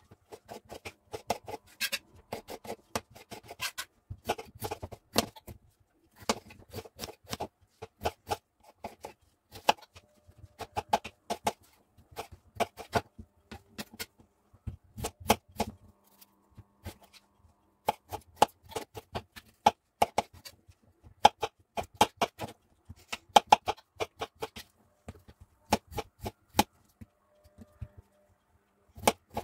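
Kitchen knife dicing raw peeled potatoes on a plastic cutting board: a run of sharp knocks, a few a second with brief pauses, as the blade goes through the potato and strikes the board.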